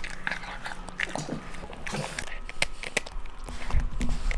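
Italian greyhound eating and chewing, heard close on a lavalier microphone worn on the dog: a run of irregular clicks with a few low thumps near the end.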